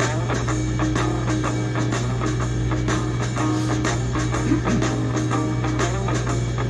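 Background music with a rock beat, drums and electric guitar.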